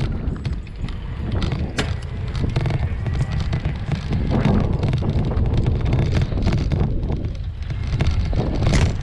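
Wind buffeting a camera microphone on a moving bicycle, over a steady low rumble of the ride. There are two sharp knocks, about two seconds in and near the end.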